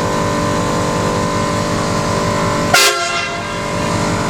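Train horns fitted to an old truck sounding a steady chord of several tones over the truck's low engine and road noise. About three seconds in, a sudden louder blast with a brief drop in pitch breaks the chord for a moment before it carries on.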